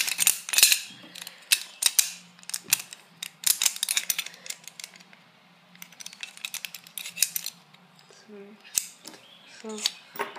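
Parts of an airsoft 1911 gas-blowback pistol clicking, scraping and rattling as it is taken apart by hand: the slide, recoil spring, guide rod and barrel bushing being worked loose and set down on a wooden tabletop. The clicks come in clusters, with a lull in the middle.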